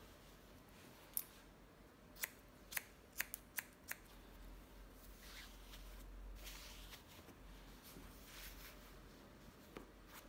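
Hairdressing scissors snipping hair: a quick run of sharp snips between about one and four seconds in, then fainter, softer sounds.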